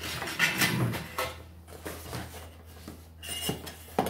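Cardboard packaging rustling and scraping as pieces are handled and pulled out of a shipping box, with one sharp knock just before the end.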